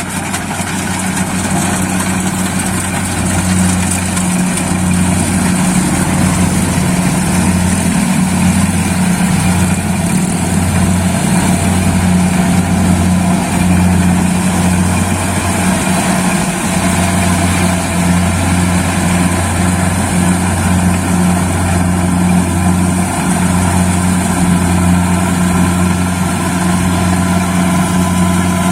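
Engine of a Kubota DC-70 Plus combine harvester running steadily, its deep drone breaking up and returning repeatedly through the middle stretch.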